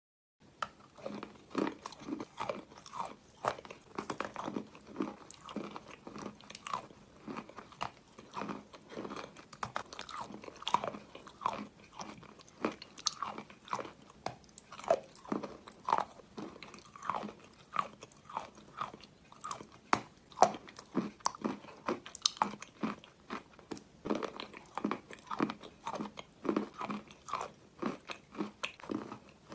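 Chalk filled with yellow paste being bitten and chewed: repeated crunches, about two or three a second, throughout.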